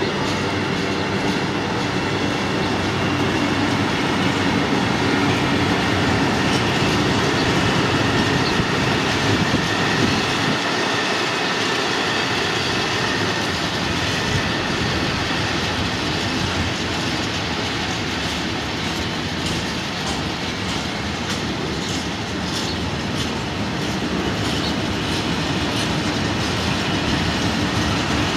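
A long train of hooded steel-coil freight wagons rolling past: a steady rumble and clatter of wheels on the rails, with clicks from the wheels over the track becoming more frequent in the later part.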